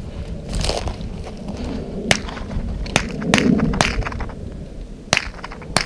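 Dry sagebrush twigs snapping and branches brushing as someone walks through the brush, with about six sharp cracks spread across the few seconds.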